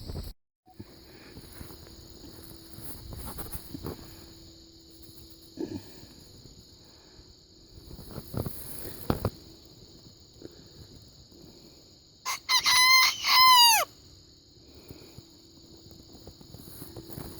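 Bantam rooster crowing once, about twelve seconds in: a short crow of several quick notes ending in a falling glide. A few faint knocks sound earlier.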